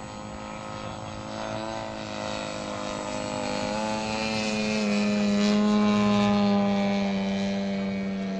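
Engine and propeller of a large radio-controlled Cub model airplane droning steadily in flight. It grows louder as the plane comes closer, peaking a little past the middle, then fades slightly.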